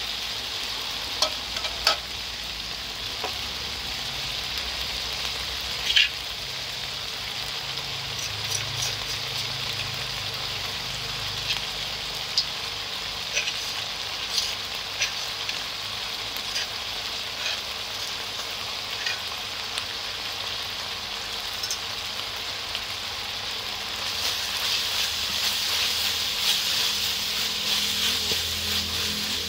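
Chopped garlic and chili sizzling in hot oil in a wok, with scattered pops and crackles. The sizzle grows louder and fuller near the end, as a metal spatula stirs the mix.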